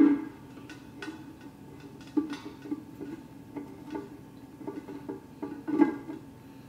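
Irregular metallic clinks and knocks, each with a short ring, as the stainless steel upper chamber of a Travel Berkey water filter is handled and worked on by hand.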